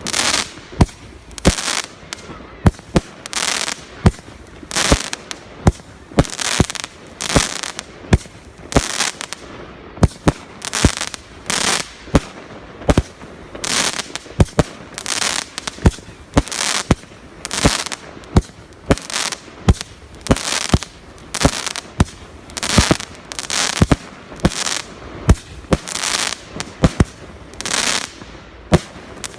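Fireworks display: a steady barrage of sharp bangs, about two a second, each set off by a hissing crackle.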